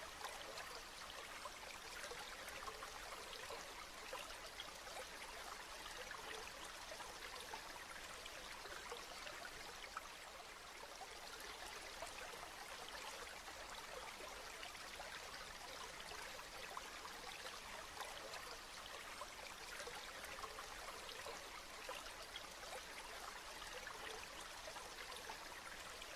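Steady rain falling: an even, soft hiss dense with small drop ticks.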